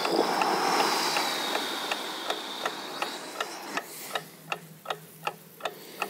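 A clock ticking steadily, about three ticks a second, under a hiss that fades away over the first four seconds.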